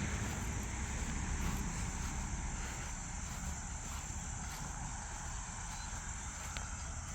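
Steady, high insect chorus, like crickets trilling, with a low rumble underneath.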